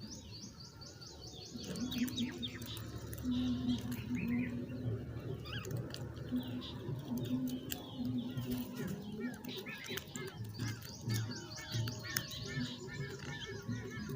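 Several small birds chirping and twittering, with a fast high trill in the first couple of seconds.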